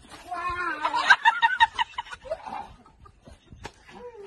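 People laughing and chuckling, loudest in the first two seconds, then dying down to a few scattered clicks.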